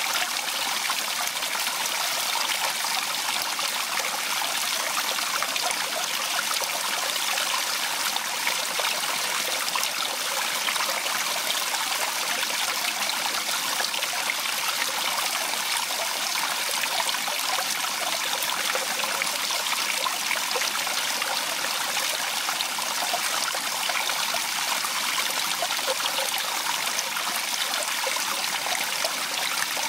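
A small stream spilling over rocks in a little cascade: a steady, even rush and splash of running water, bright and hissy rather than deep.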